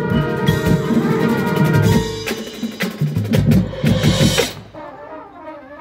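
Drum and bugle corps playing full out: brass horns holding a chord over rapid snare and bass drum strokes. The loud playing cuts off sharply about four and a half seconds in, dropping to a much softer passage.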